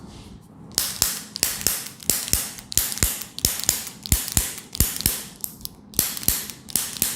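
A rapid run of sharp slaps, about three a second, starting about a second in: percussive hand strikes on a patient's body during a chiropractic treatment.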